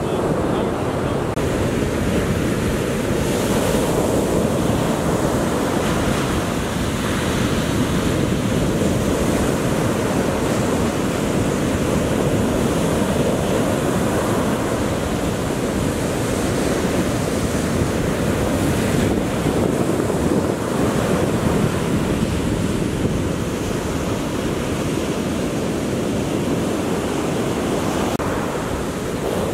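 Atlantic surf breaking and washing up the beach in a steady, rising-and-falling wash, with wind rushing over the microphone.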